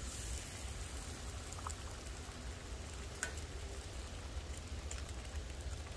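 Bacon sizzling in a small pan held over a wood-burning camp stove, a steady frying hiss with a few sharp crackles from the fire, over a low steady rumble.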